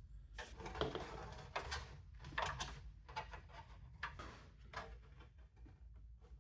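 Faint scattered clicks and plastic rustles of a SATA power cable being handled and plugged into its connector.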